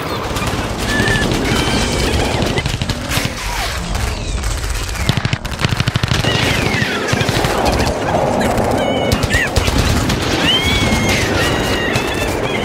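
Bobsled-style roller coaster car running down its trough with a fast, dense clattering rattle. Short high-pitched squeals and yelps come over it from about halfway on.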